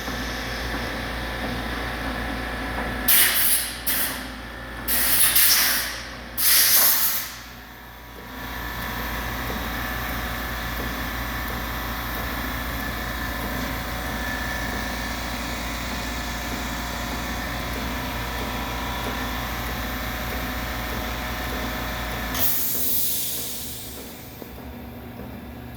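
Small dumpling-making machine running with a steady hum, broken by three loud hissing bursts a few seconds in; near the end another hiss, and the machine's low drone stops.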